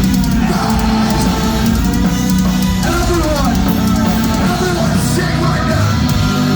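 Metalcore band playing live at full volume: heavily distorted electric guitars, bass and a drum kit pounding out a dense, continuous wall of sound.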